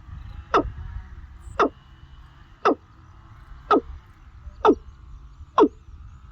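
A bird calling again and again, six short sharp calls about a second apart, each dropping quickly in pitch, over a steady low rumble.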